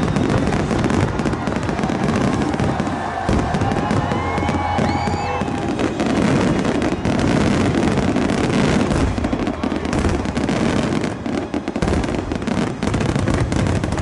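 Fireworks display: a dense, unbroken barrage of aerial shell bursts, the bangs and crackles running together with no gaps between them.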